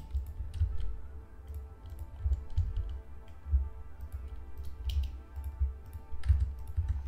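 Computer keyboard keys and mouse buttons clicking now and then over soft background music with a pulsing low bass.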